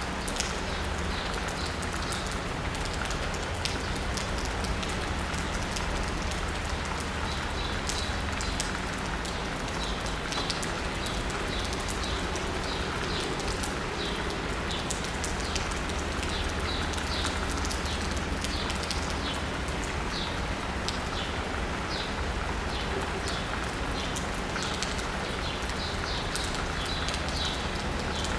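Steady rain pattering on asphalt and rooftops, with birds chirping again and again in short high notes over a low, steady rumble of distant city traffic.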